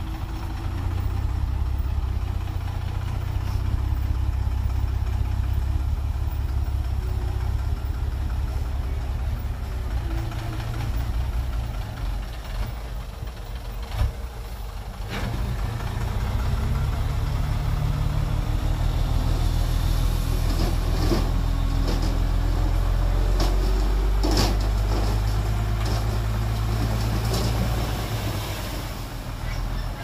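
Diesel engines of a loaded dump truck and a small crawler bulldozer running steadily. In the second half the truck's bed tips up and its load of soil slides out, with scattered knocks over the engine noise.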